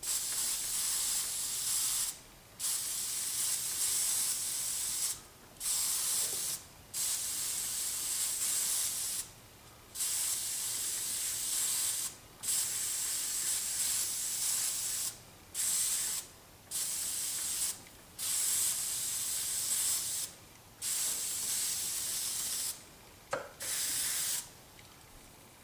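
Airbrush spraying paint in about eleven short bursts of one to three seconds each, a steady hiss stopping and starting between them, as a thin, light coat is laid onto a die-cast toy car. The spraying stops shortly before the end.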